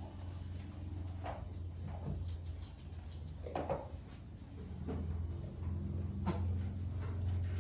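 Steady high-pitched chorus of insects, with a steady low hum beneath and a few short, faint sounds scattered through.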